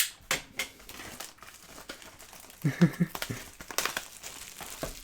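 Trading card pack wrappers crinkling, with sharp clicks and rustles as the cards are handled; a loud click at the start.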